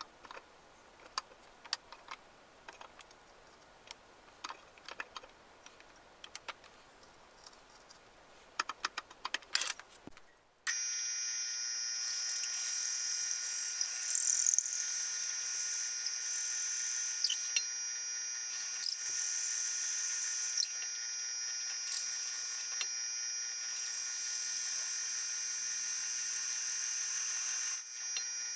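Scattered light clicks and taps, then about ten seconds in a power drill starts and runs steadily with a high-pitched whine, drilling into a wooden gun stock.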